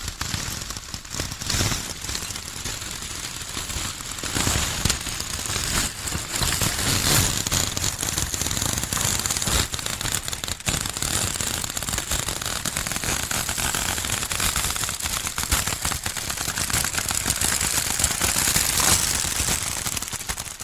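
Dense, continuous crackling and popping, many sharp pops a second.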